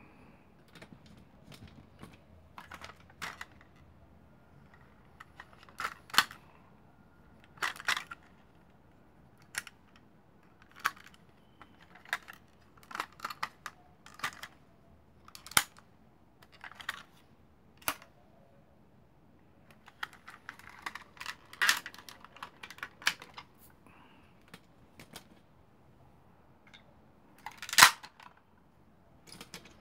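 Plastic parts of a vintage Transformers Optimus Prime toy clicking and snapping as they are turned and locked into place by hand. The clicks are irregular and sharp, with the loudest snap near the end.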